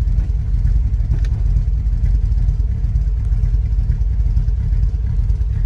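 1973 Jensen Interceptor Series 3's V8 engine idling steadily, heard from inside the cabin, with a single faint click about a second in.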